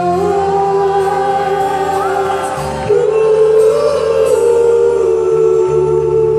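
Live acoustic ballad: a male singer holds long notes into a microphone over acoustic guitar, stepping up to a higher, louder note about three seconds in.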